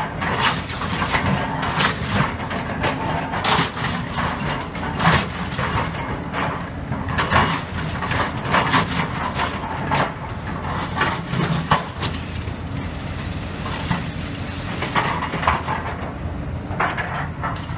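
Excavator engine running steadily under frequent irregular cracks and knocks of building rubble being broken and shifted by the bucket.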